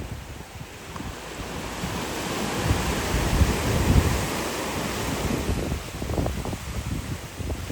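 Pacific surf on a rocky beach: a wave washes in, its hiss swelling over the first few seconds and then easing off, with wind buffeting the microphone.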